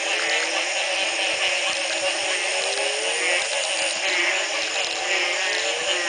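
A dense chorus of frogs calling after the first rain following a long drought: many low calls that each rise in pitch, overlapping and repeating about once or twice a second, over a higher, rapidly pulsing chorus.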